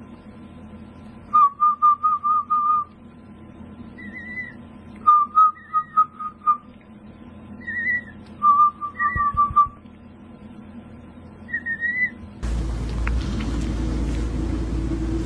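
Emu chick whistling: three runs of quick repeated chirps at one pitch, with shorter, higher two-note whistles between them. A little before the end a steady rushing noise with a low hum takes over.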